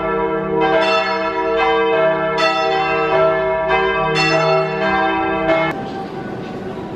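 Church bells of the Sacred Heart church in Bordeaux ringing a peal, a new stroke about every 0.8 seconds with each stroke ringing on. The bells cut off abruptly near the end.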